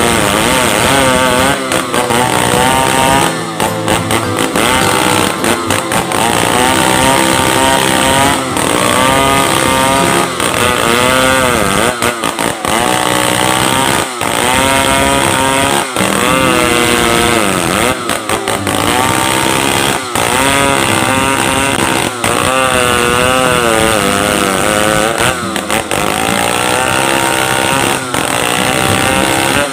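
Stihl 070 two-stroke chainsaw running at high revs while ripping lengthwise along a large log, its pitch wavering up and down under load, with brief dips every few seconds.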